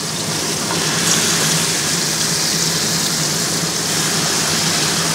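Marinated chicken pieces sizzling in hot oil on a grill pan, the sizzle growing louder about a second in as another piece is laid down.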